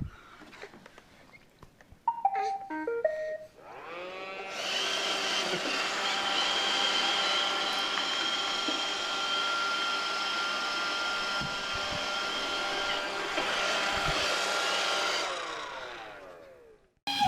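Roomba robot vacuum playing a short run of start-up beeps, then its motor spinning up with a rising whine, running steadily, and winding down near the end.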